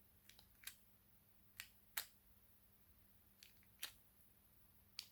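Fidget cube's plastic slider pushed back and forth, giving a series of faint, sharp clicks, several in pairs about half a second apart.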